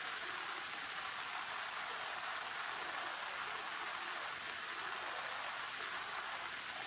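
Steady rain falling, an even hiss without distinct drops or pauses.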